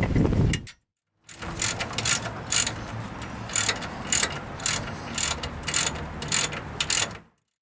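Ratchet wrench clicking in short, irregular strokes, about two clicks a second, as a rear brake caliper bracket bolt is run down.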